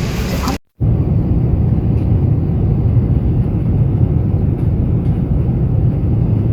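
Steady low rumble from inside a moving vehicle, with a brief dropout under a second in.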